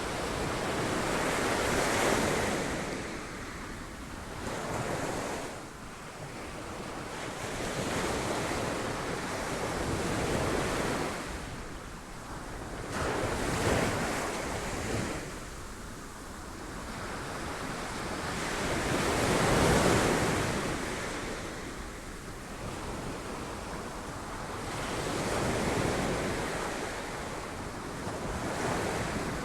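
Sea waves breaking on rocks, a rushing wash that swells and recedes every few seconds, with the loudest surge about two-thirds of the way through. Wind buffets the microphone.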